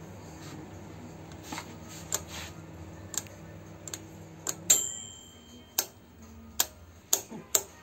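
Stepped output-voltage selector switch of a VIP-009 bench power supply clicking through its detents as it is turned, a dozen or so irregular clicks. The loudest click, about five seconds in, rings briefly; a low hum sits under the first half.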